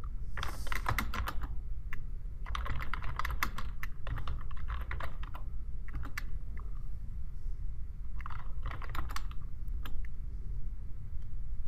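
Typing on a computer keyboard: three bursts of rapid key clicks separated by short pauses, with a few single keystrokes between them, over a steady low hum.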